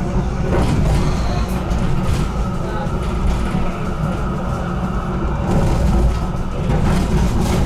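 HTM GTL8 articulated tram running on its rails, heard from inside the car: a steady low rumble of wheels and running gear, with scattered short clicks over the track.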